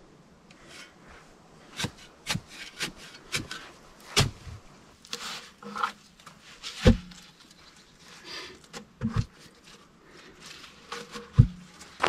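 A heavy wooden log being handled and shifted in a sandy pit: irregular knocks and scraping of wood against wood and soil. Three heavy low thuds stand out, about four, seven and eleven seconds in.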